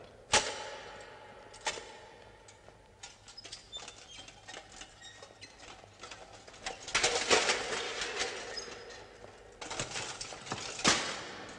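Metal suit of armour clanking and rattling as a person moves in it: a couple of sharp knocks at the start, a run of light rattling, then two louder bursts of clatter.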